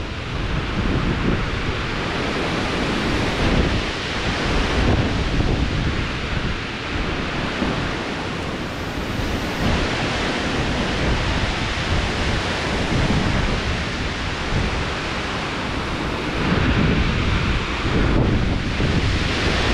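Strong storm wind blowing hard across the microphone: a loud, steady rush of noise that swells in gusts, with low buffeting from the wind hitting the mic.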